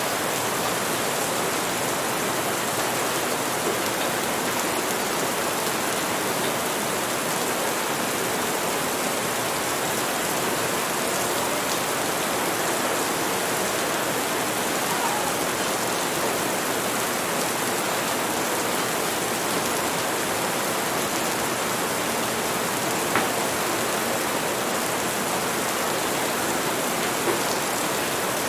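Steady rain, an even hiss with no let-up, broken by a few faint clicks now and then.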